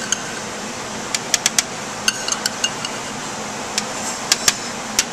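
A metal spoon and fava beans tapping and clicking on a stainless steel sheet pan: about a dozen light, irregular clicks with a faint metallic ring, over a steady background hiss.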